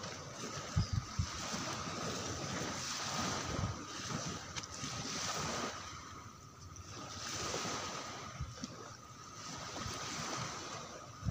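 Sea waves washing onto a beach, the surf swelling and fading every few seconds, with wind buffeting the microphone in a few low thumps about a second in.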